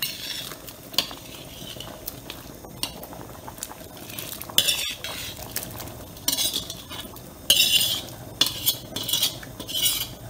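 Metal ladle scraping and knocking against a wok as stir-fried snake pieces and lemongrass are pushed out of it into a pot of congee: a series of short, sharp scrapes, coming more often in the second half.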